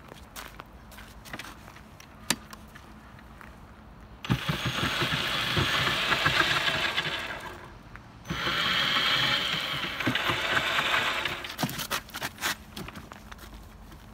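Corded electric drills driving the wheels of a homemade utility vehicle, run twice for about three seconds each, with a short stop between, while the vehicle lies on its side so the wheels spin free. This is a test run to check the drills and their heavy-duty relays still work after misuse. A few clicks follow near the end.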